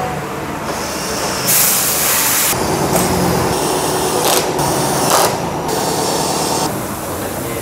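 Pneumatic workshop tool running in several short bursts with rattling and air hissing: one long burst about a second and a half in, then shorter ones.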